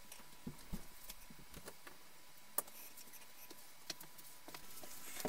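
Faint, scattered clicks and small crackles from the vinyl of an Intex Explorer 100 inflatable boat as it slowly deflates and sags, with a soft rustle starting near the end.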